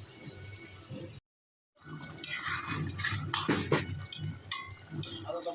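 A spoon stirring and scraping in a cooking pot, with repeated clinks and clatter of kitchenware. The sound drops out briefly about a second in.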